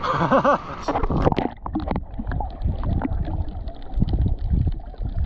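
Muffled sea water sloshing and gurgling around a camera at and below the surface, with irregular low thumps. A brief voice sound comes at the very start.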